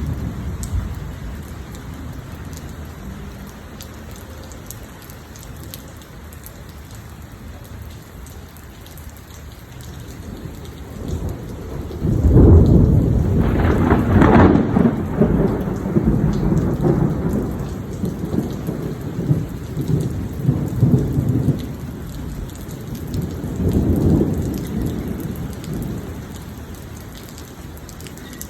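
Thunderstorm: steady rain falling throughout, with a rumble of thunder fading away at the start. About twelve seconds in, a loud clap of thunder breaks and rolls on for roughly ten seconds, and a smaller swell of thunder comes near the end.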